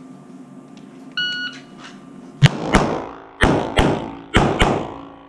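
Electronic shot timer start beep, then six shots from an S&W M&P .40 pistol fired in three quick pairs about a second apart. Each shot trails a short echo off the walls of an indoor range.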